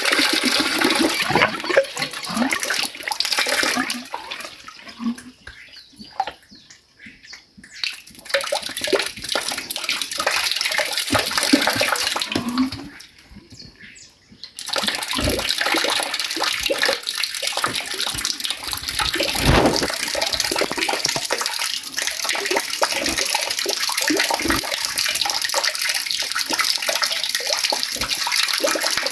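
Water running and splashing in a steady rush that nearly stops twice, around a quarter and half way through, with occasional low knocks.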